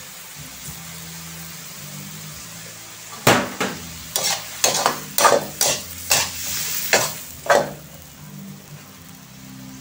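Shrimp sizzling in a metal wok, then a slotted metal spatula scraping and knocking against the wok about ten times in quick succession as they are stir-fried, starting about three seconds in.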